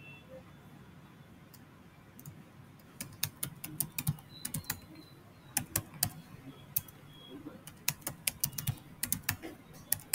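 Computer keyboard being typed on, quick runs of key clicks in several bursts starting about three seconds in, as a password is entered and then retyped.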